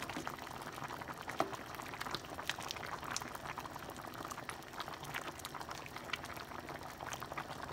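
A pot of chicken cabbage soup at a steady boil, bubbling with frequent small pops, stirred with a plastic ladle.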